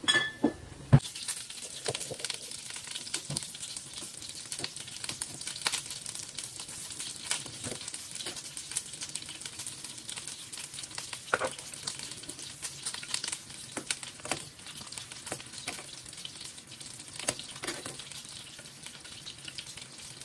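Water boiling hard in a stainless steel saucepan of okra, a steady bubbling crackle throughout. Two sharp knocks at the start, the louder about a second in.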